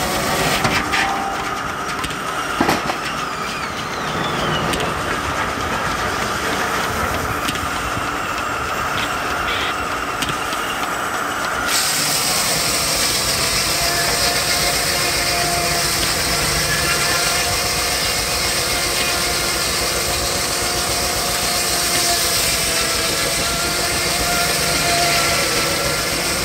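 Steam traction engine belt-driving a Frick sawmill with a 60-inch circular blade, running steadily with a whine from the mill. About twelve seconds in, a loud hiss starts abruptly and holds.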